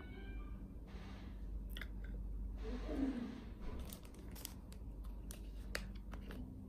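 Tabletop handling noise: soft rustling, then a run of sharp clicks and crinkles from about four seconds on as a thin plastic water bottle is picked up and handled.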